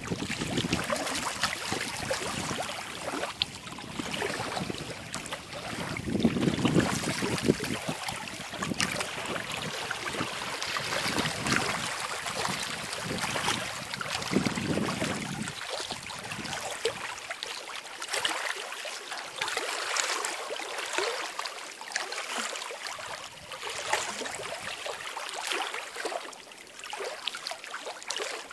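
Small lake waves lapping and splashing in a steady, choppy wash. Gusts of wind rumble on the microphone three times in the first half, then die away.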